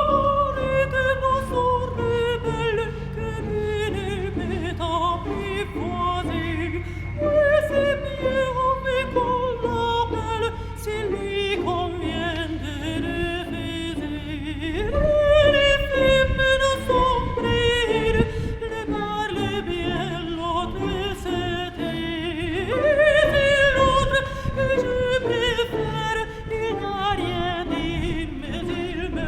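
Background music with a singing voice in an operatic style: long melodic phrases that slide slowly downward in pitch, each starting again higher, about three times.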